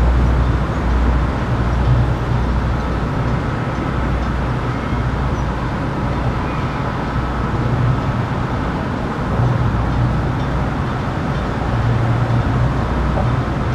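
Steady road traffic noise with a low rumble that swells and eases every few seconds.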